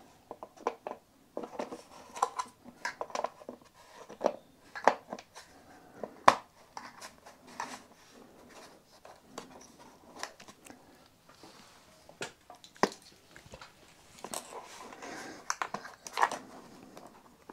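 Hands working a plastic e-bike battery cap with its lock and on/off switch down onto the battery case, pushing wires inside: scattered clicks and taps of plastic, with some rustling handling noise.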